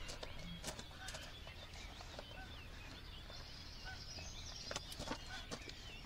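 A great bittern booming in the background: one short, low boom about half a second in, against faint chirping of small songbirds in the dawn chorus and a few sharp handling clicks.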